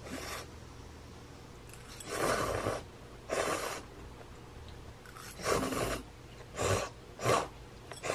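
A person slurping broth from a paper cup of instant cup noodles: a series of short slurps, about six or seven, spaced a second or so apart.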